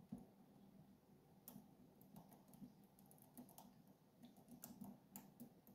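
Faint, irregular ticks and clicks of a hook pick working the pin tumblers of a lock under tension, probing pins and setting them at the shear line.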